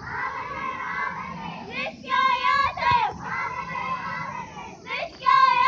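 Call-and-response slogan chanting by a marching group of girls: a high-pitched lead voice shouts a slogan twice, about three seconds apart, and a crowd of voices answers in unison in between.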